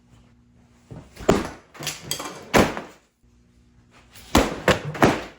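A run of loud thumps or bangs: two strong hits about a second apart, a short pause, then a quick cluster of three more near the end.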